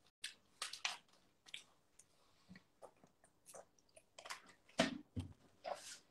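A person eating: irregular bites and chewing, with short crunchy clicks and mouth noises close to the microphone.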